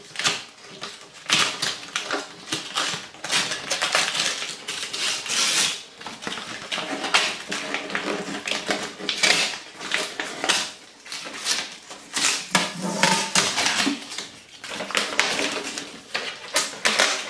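Packing paper rustling, crinkling and tearing in irregular bursts as it is pulled off an appliance by hand.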